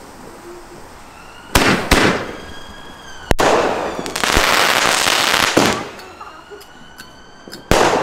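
Aerial fireworks going off: sharp bangs of bursting shells about a second and a half and two seconds in, and again after three seconds. A couple of seconds of dense crackling follows, with whistling tones that glide downward between bursts, and another bang near the end.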